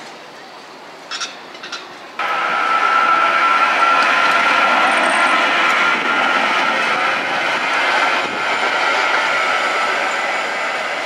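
Faint city hum with a few short sounds, then from about two seconds in a PCC tram passing close on its rails: a loud, steady running noise carrying a high-pitched whine.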